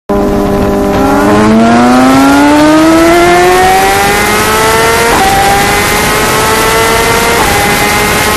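2016 BMW S1000RR's inline-four engine accelerating hard, its pitch climbing steadily, with upshifts about five and seven and a half seconds in, each a brief dip in pitch; heavy wind rush over it. The throttle is held at no more than about 71% open, a limit the rider could not explain.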